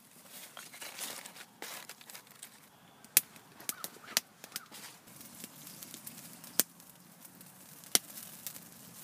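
Small wood campfire burning and crackling, with four sharp pops from the burning wood spaced out over the last six seconds.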